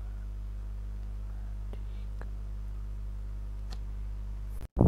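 Steady low hum with a few faint ticks of a pen writing on paper; the sound cuts out for an instant near the end, just before a voice begins.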